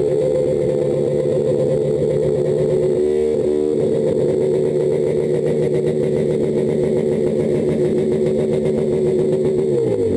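Motorcycle engine running steadily, with a brief wavering tone about three seconds in.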